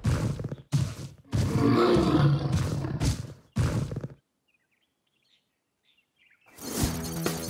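Cartoon monster roaring in four rough bursts, the longest in the middle, cutting off about four seconds in. After a short silence, music starts near the end.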